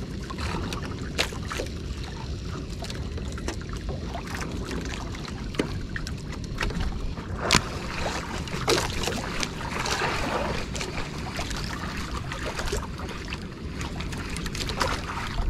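Wind buffeting the microphone over water lapping against the hull of a small wooden outrigger boat, with scattered small clicks and knocks throughout.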